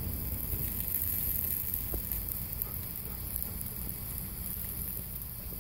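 Chicken and vegetables sizzling on a grill: a steady, even hiss, with a low rumble underneath.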